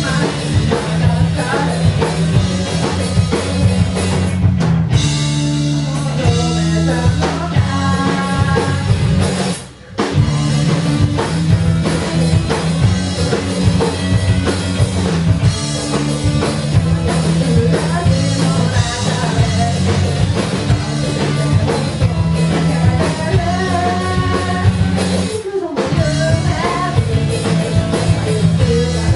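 A live rock band playing with a drum kit, electric guitar and bass, and a singer heard in places. The whole band stops dead for a moment just before ten seconds in, then crashes back in.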